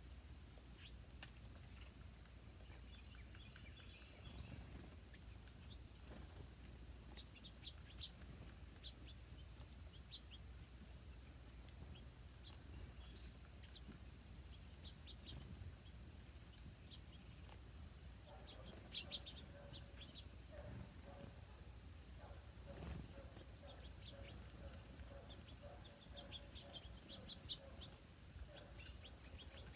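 Small birds at a feeder giving short, faint, scattered chirps over a low steady background hum.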